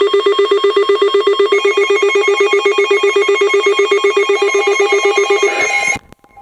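Electronic emergency alert attention tone: a loud, rapidly pulsing ringing tone, about ten pulses a second, with a higher tone layered on about a second and a half in. It cuts off sharply near the end.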